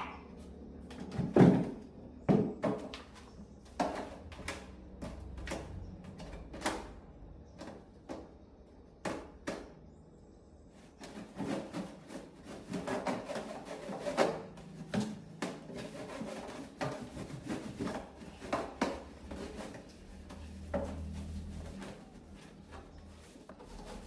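Irregular clicks and knocks of small objects being handled and set down on a work surface, the loudest two close together near the start, over a faint steady low hum.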